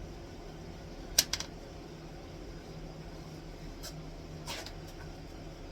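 Steady low machine hum, like a running fan, with a few sharp clicks and taps of things being handled: a loud pair about a second in, then fainter ones around four seconds.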